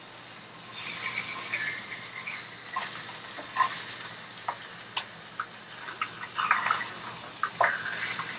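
Crappie fillets frying in a pan with a steady sizzle, while a spatula scrapes and taps against the pan several times as the fillets are turned.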